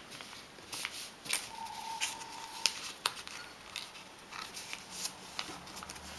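Sheet of paper being folded and creased by hand into a paper aeroplane: scattered crisp crinkles and rustles.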